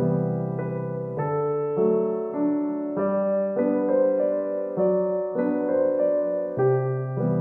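Background piano music: a slow, even melody of single notes over low sustained bass notes.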